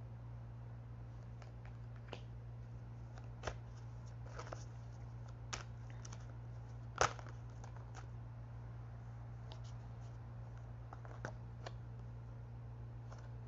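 Tarot cards being handled: scattered light taps and flicks, the sharpest about seven seconds in, over a steady low hum.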